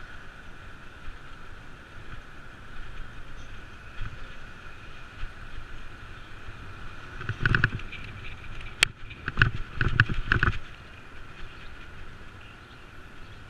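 Bicycle riding on a city street, heard from a camera mounted on the bike: steady road noise with a thin, steady high hum, and clusters of rattling knocks about 7 seconds in and again from about 9 to 10 seconds, with one sharp click between them.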